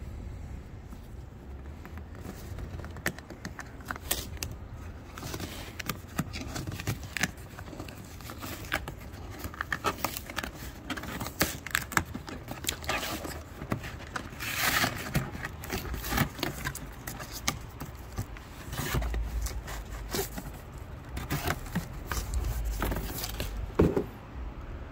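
A cardboard Priority Mail box being opened by hand: cardboard and tape tearing, flaps scraping and crinkling, with irregular clicks and knocks as the box and its contents are handled. The longest tearing rasp comes a little past the middle.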